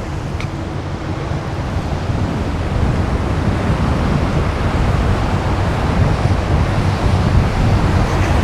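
Heavy surf and strong wind blowing across the microphone: a steady rushing noise, heaviest in the low end, growing a little louder in the second half.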